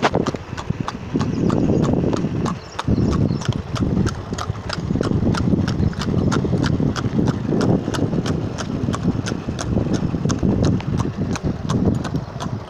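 A horse's hooves clip-clopping on an asphalt road at a brisk, even gait, about four hoofbeats a second, over a continuous low rumble.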